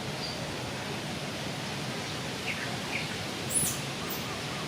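Steady noise of wind through the trees at night, with a few short high chirps near the middle and a brief sharp high click about three and a half seconds in.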